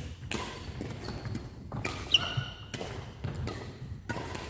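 Badminton rally on a wooden indoor court: rackets striking the shuttlecock and players' feet landing, a sharp hit every second or so, the loudest about halfway through, with brief shoe squeaks on the floor.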